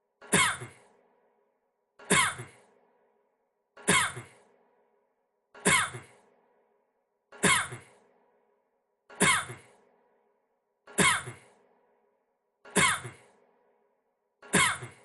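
A man's single short cough with a breathy tail, repeated as an identical loop about every 1.8 seconds, nine times.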